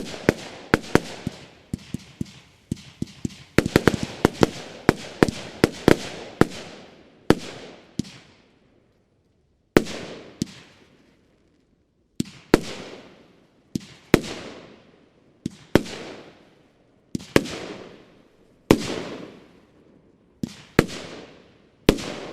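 Nordlicht 'Hand Gottes' compound firework battery, 20, 25 and 30 mm calibres, firing. A fast run of shots and bursts for the first several seconds, then after a brief pause single shots and bursts about every second and a half, each trailing off.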